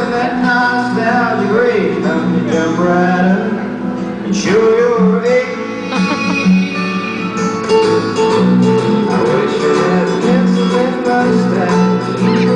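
A song with singing and guitar playing steadily, the routine's music.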